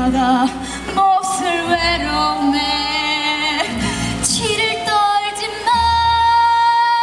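A woman singing a musical-theatre song into a microphone over a backing track, amplified through loudspeakers. She sings several sustained, wavering notes and ends on one long held note near the end.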